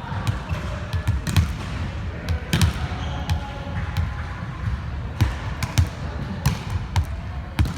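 Volleyballs being hit and bouncing on a hard gym floor: irregular sharp slaps and thuds, several a few seconds apart, over steady indoor gym noise.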